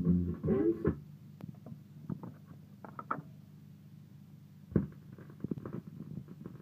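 A 7-inch vinyl single playing on a turntable: the music drops away about a second in, leaving a quiet groove with a low hum and scattered crackles and clicks of surface noise, one sharper click near the end.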